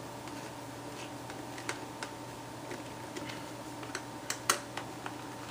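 Irregular small plastic clicks and taps as toner cartridge parts are handled and fitted together, the loudest click about four and a half seconds in, over a faint steady hum.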